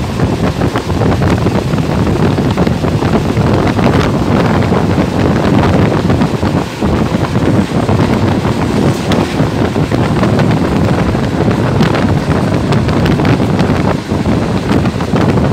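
Wind buffeting the microphone held out of a moving passenger train's open window, over the steady running noise of the coach on the track.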